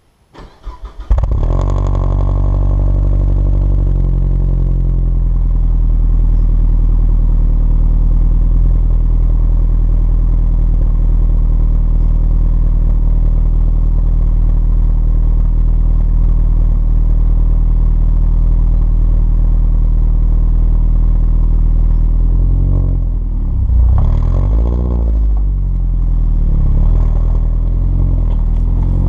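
Alfa Romeo Brera S 2.2's four-cylinder petrol engine, heard at the tailpipes of its stainless steel cat-back exhaust with the centre silencer removed and Prodrive back boxes, starting up about a second in. It settles from a higher idle over the first few seconds to a steady idle. It is revved briefly a couple of times about three quarters of the way through, then drops back to idle.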